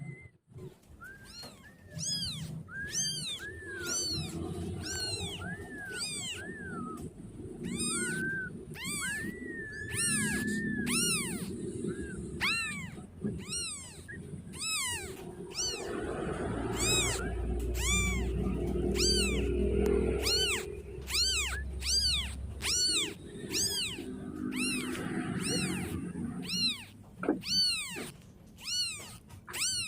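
Very young kitten meowing over and over, high-pitched short calls about one or two a second, each rising then falling in pitch: a kitten crying for its mother. A low rumble runs under the calls through the middle.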